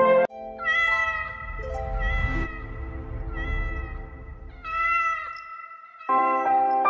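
A domestic cat meowing about four times over soft background music. Fuller music comes back in near the end.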